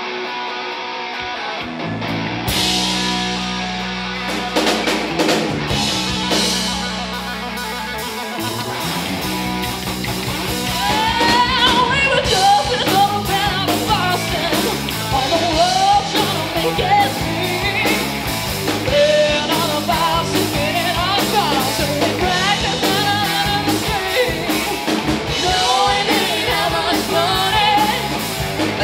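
Live rock band playing a song: electric guitar opens alone, the drum kit comes in about two and a half seconds in with a steady beat, and a female lead vocal starts about ten seconds in over guitars and drums.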